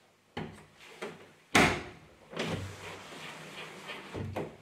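Knocks and clunks from handling a hatchback's door and its newly fitted door card. The loudest is a sharp clunk about one and a half seconds in, followed by a stretch of scraping and rattling and two more knocks near the end.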